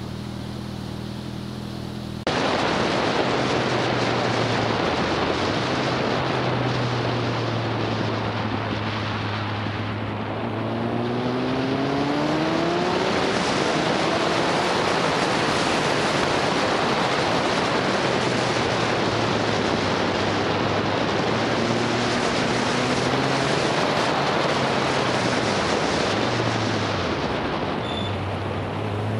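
Motorcycle riding at speed, with loud wind rush on the microphone over the engine. The wind rush sets in suddenly about two seconds in, and the engine note climbs in pitch a few times as the bike accelerates.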